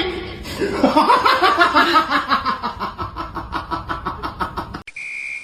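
A person laughing in a long run of quick, repeated bursts. It cuts off near the end and a steady high tone follows.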